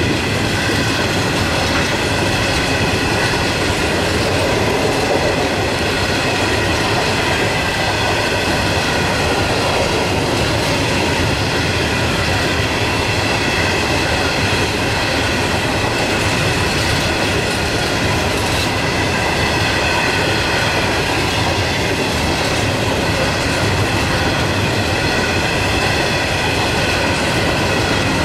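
Long rake of steel coal hopper wagons rolling past, wheels running steadily on the rails, with a high squeal in several pitches that wavers slightly.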